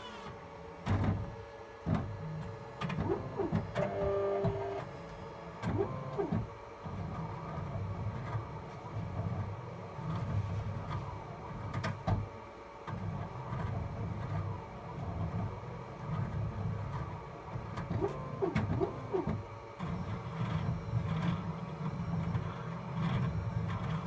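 Lex 1000 optical lens edger running its cutting cycle on a polycarbonate lens: a steady machine hum with a low rumble that rises and falls as the lens turns against the cutting wheel.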